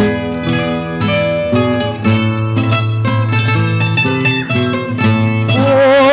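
Acoustic guitar and other plucked-string instruments playing a lively traditional instrumental introduction. Near the end a man starts singing with a strong vibrato over the strings.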